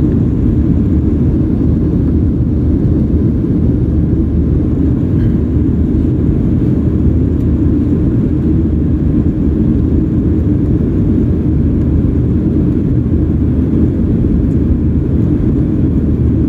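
Steady, deep cabin noise of a Boeing 737-800 in flight shortly after takeoff: its CFM56-7B turbofan engines and the airflow over the fuselage, heard from a window seat behind the wing, with no changes in pitch or level.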